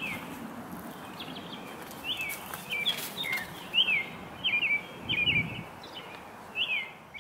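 Small birds chirping: about a dozen short, quick chirps that fall in pitch, irregularly spaced, over a steady background hiss of outdoor ambience.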